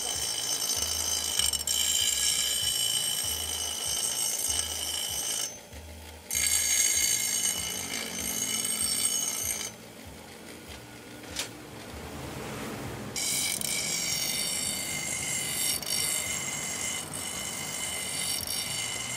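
A bench grinder's abrasive wheel grinds a steel machete blade with a high, ringing screech. The grinding breaks off briefly about five seconds in, and again for about three seconds around the middle while the blade is lifted off the wheel, then resumes.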